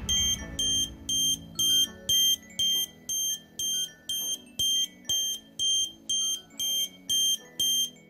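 12 V piezo buzzer sounding the alarm: a loud, high-pitched beep repeating evenly about twice a second, the sign that the vibration sensor has tripped the relay.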